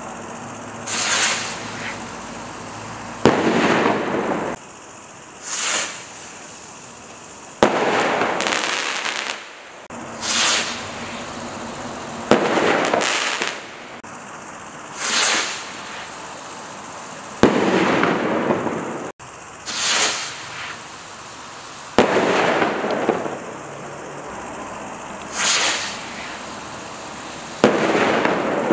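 Standard Fireworks Galactica flash rockets fired one after another, about six in all. Each gives a short, high hissing whoosh as it launches, then about two seconds later a sharp bang as it bursts, echoing away over a second or so.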